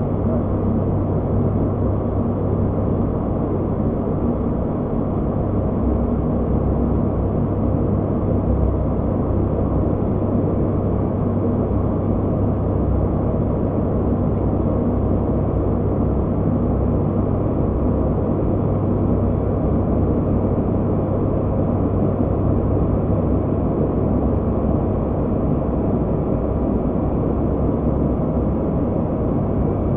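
Cockpit noise of an ATR 72-600 turboprop in flight on approach: a steady low drone from its twin Pratt & Whitney PW127M engines and six-bladed propellers, mixed with the rush of air past the cockpit.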